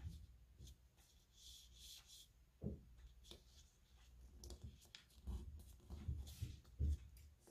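A sheet of colour paper being handled and folded by hand: soft, faint rustles and creasing scrapes, with a few light knocks of paper and fingers against the table, most of them in the second half.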